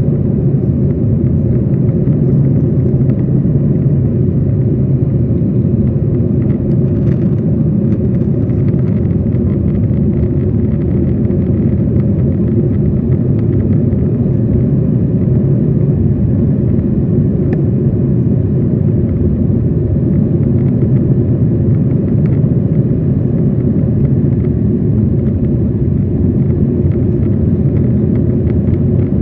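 Steady low rumble of a Boeing 737's engines and airflow heard inside the passenger cabin over the wing during the climb after takeoff.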